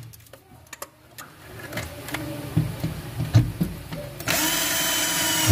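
A few light knocks and clicks of handling, then an electric drill runs steadily for about a second near the end, driving or boring for a screw fixing.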